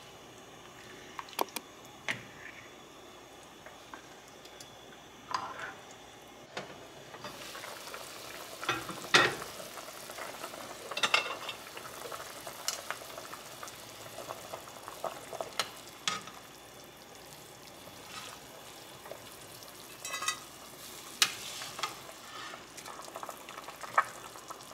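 A spoon stirring and scraping through pho broth in an enameled pot, with scattered sharp knocks against the pot. Under them runs a steady hiss from the simmering broth, which thickens about seven seconds in.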